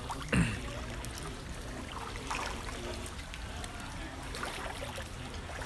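Water sloshing and swishing as people wade through knee-deep floodwater. A short, loud sound that drops in pitch comes about a third of a second in, and faint voices are heard in the background.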